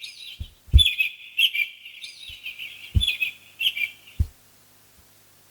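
Synthesized bird-tweet sound effect (General MIDI program 123) from a MIDIPLUS MiniEngine sound module: bursts of high, rapid twittering chirps, each opening with a short low knock, stopping a little past four seconds in.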